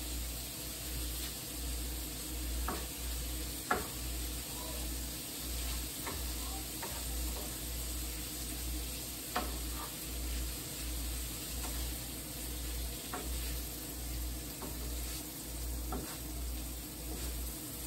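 Chicken, onions and green peppers sizzling in a skillet, stirred with a wooden spatula that gives a light knock or scrape against the pan every few seconds.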